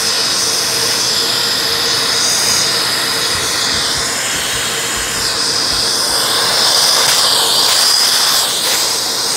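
Festool dust extractor running, its hose nozzle sucking drywall dust out of torn holes in the wall: a steady rushing hiss with a faint whine, the airflow note shifting a little in the second half.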